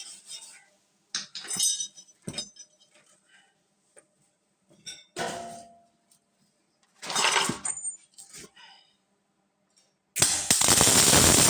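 Scattered metallic clinks and scrapes of steel being worked, with a loud, steady burst of noise about two seconds long near the end.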